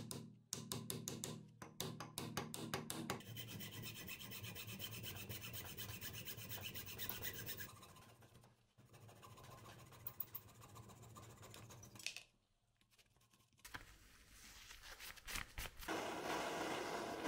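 Wood being rubbed by hand with an abrasive in quick back-and-forth strokes, pausing briefly about halfway through and again later.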